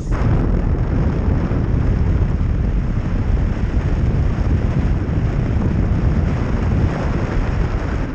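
Wind rushing over the camera microphone of a paraglider in flight: a loud, steady buffeting rush, heaviest in the low end.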